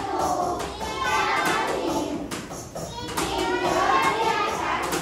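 People's voices talking.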